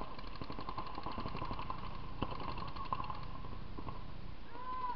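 Paintball markers firing rapid strings of shots: a fast, even rattle of pops for about the first three seconds, with a few louder single pops after about two seconds.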